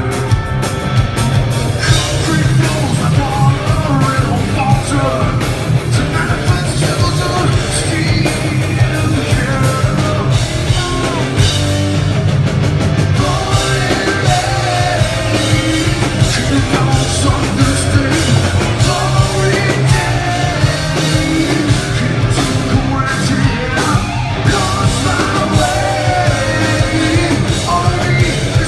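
Live hard rock band playing loud: electric guitar, bass guitar and drums, with a lead singer singing and yelling over them.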